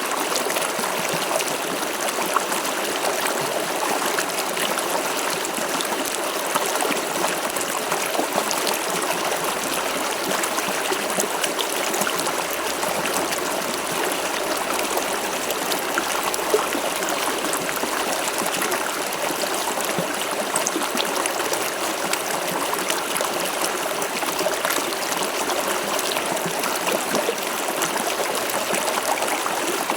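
River water flowing over stones, a steady rush with small trickles and splashes.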